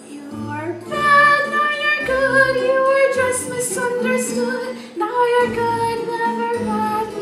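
A musical-theatre song: a female voice sings held, melodic lines over instrumental accompaniment with a recurring bass line.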